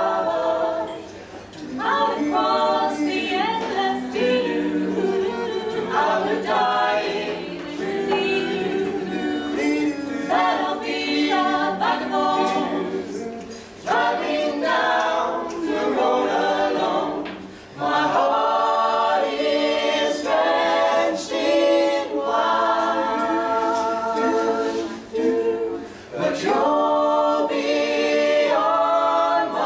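A six-voice mixed a cappella group, four men and two women, singing together in harmony with no instruments. Phrases run on with short breaks about a second in, near 14 and 18 seconds, and near 26 seconds.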